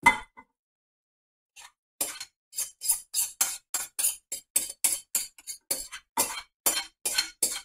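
A spoon scraping and clinking against a bowl as leftover spaghetti is scraped out: a quick, even run of short strokes, about three a second, starting about two seconds in.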